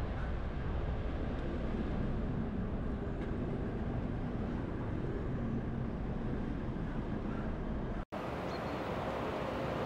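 Renault Trucks T High 480 Turbo Compound diesel engine running at low revs as the truck and loaded trailer manoeuvre slowly. About eight seconds in the sound cuts out for an instant and comes back as a steadier, hissier rushing noise.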